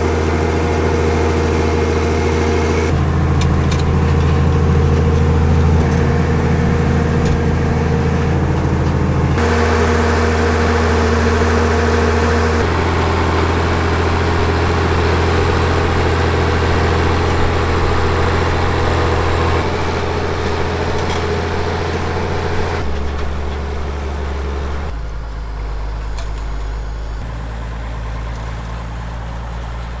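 Fiatagri 160-90 DT tractor's six-cylinder turbocharged 8.1-litre Fiat diesel engine running steadily under load while pulling a four-furrow plough, heard first from inside the cab. The engine note shifts abruptly several times and is somewhat quieter over the last few seconds.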